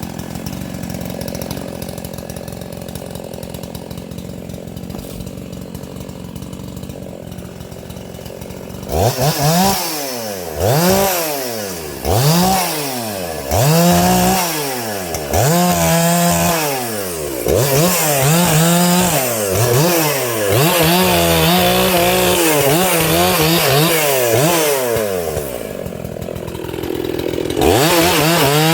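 Muffler-modded 80cc Makita EA7900 (Dolmar 7900) two-stroke chainsaw idling steadily for about nine seconds. It is then revved in a series of short rising and falling bursts, and held at high revs for several seconds with dips in pitch, before revving up again near the end.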